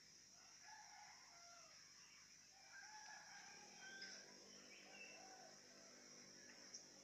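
Faint rooster crowing and other scattered bird calls, over a steady high insect drone.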